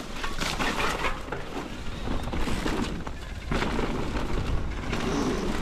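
Mountain bike being ridden along a dirt trail, through a berm and over a jump: a continuous rush of tyre and wind noise with a heavy low rumble that swells and eases as the speed changes.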